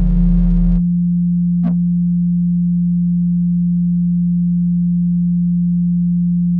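Electronic music: a distorted synth chord with heavy bass cuts off about a second in. It leaves a single low synthesized tone, close to a pure sine, held steady.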